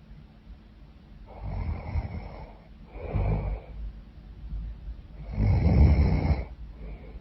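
A woman snoring: three snores with quiet breathing between, the third the longest and loudest.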